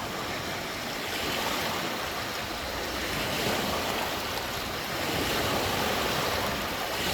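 Lake water washing and lapping in small waves, a steady rush that swells and eases slowly.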